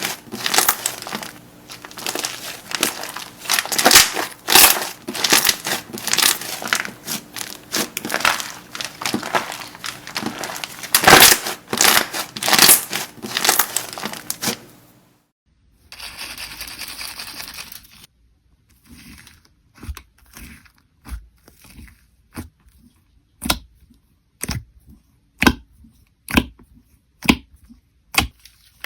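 Slime being squeezed and pressed by hand: dense crackling and popping for about fifteen seconds, then, after a brief cut, a short hiss followed by separate crisp pops about once a second.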